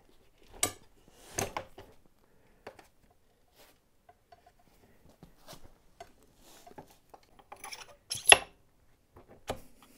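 Scattered metallic clinks and knocks of a motorcycle front wheel and steel axle being fitted into the fork, the loudest a sharp ringing clink about eight seconds in.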